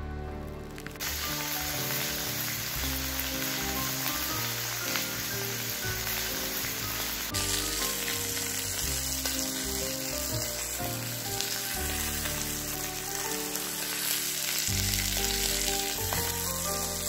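T-bone steak sizzling steadily in a hot cast-iron skillet, the sizzle starting about a second in, with background music.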